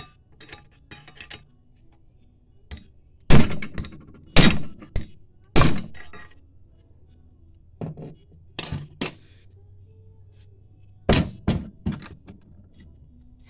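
Sharp metal-on-metal strikes: a wrench set on the lip of an oil pump pickup tube being struck to drive the tube into the pump body. Three hard strikes about a second apart, then several lighter ones, each with a brief ring. The tube is a tight press fit and barely moves.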